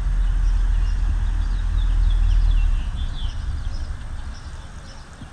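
A car's engine rumbling low, fading away from about three seconds in, with birds chirping over it.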